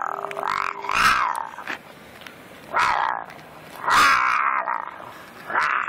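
An animal coughing: five loud, raspy coughs over about six seconds.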